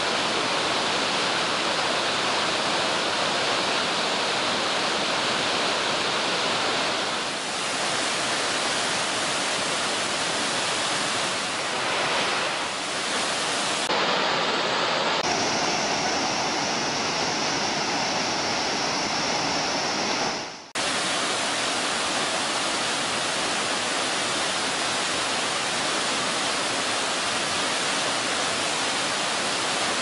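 Iguazu Falls, a very large waterfall, with a steady, dense rush of falling water. The character of the rush shifts for several seconds in the middle, and it drops out for an instant about 21 seconds in.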